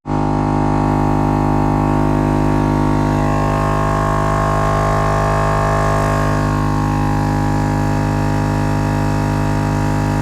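12-volt portable air compressor running: a loud, steady buzzing drone that starts abruptly, inflating a completely flat tire.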